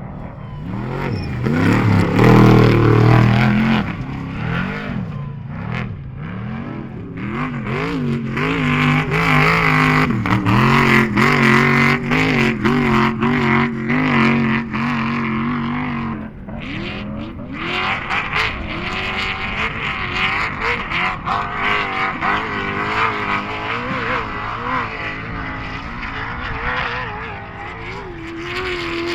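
Off-road race vehicles' engines revving hard as they go past, the pitch surging up and down with the throttle. One loud low engine passes about two seconds in, and a busier, higher engine noise follows in the second half.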